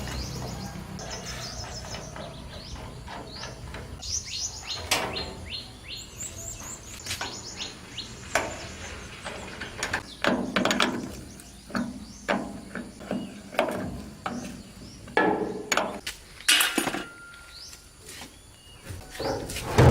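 Small birds chirping in quick high notes, over scattered knocks and clatter of metal parts being handled.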